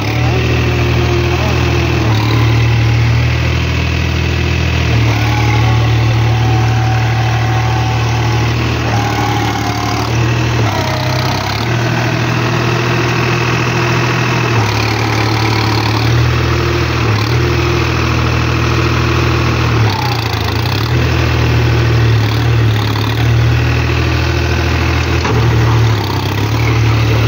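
New Holland 4710 tractor's diesel engine running loud and close, working a rotavator through flooded paddy mud. Its engine note dips and picks up again several times.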